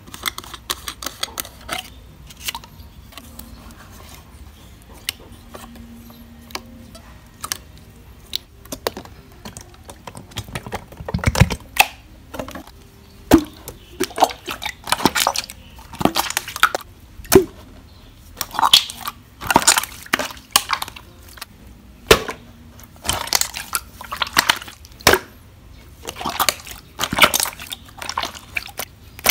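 Clear 'fake water' slime being squished and poked by hand, giving wet clicks, pops and crackles. The pops are sparse at first and grow louder and closer together about halfway through.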